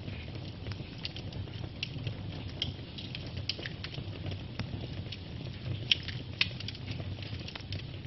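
Wood logs burning, crackling with frequent small pops over a low, steady rumble of flame. Two louder pops stand out a little after the middle.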